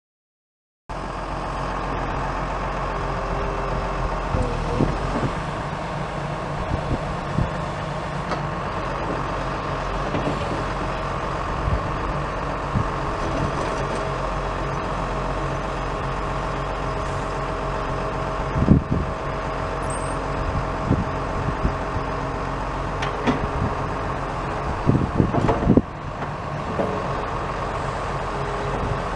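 Komatsu PC220LC-6LE excavator's six-cylinder turbo diesel engine running steadily, starting about a second in, while the machine is being operated. A few sharp clanks and knocks stand out, the loudest about two-thirds of the way through and a cluster near the end.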